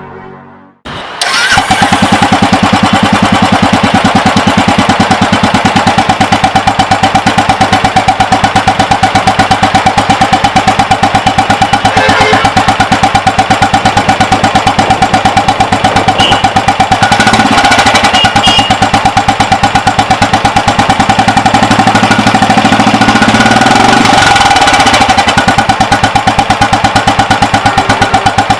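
Royal Enfield Classic 350 single-cylinder engine starting about a second in, then idling with a steady, even pulsing exhaust beat through an aftermarket exhaust.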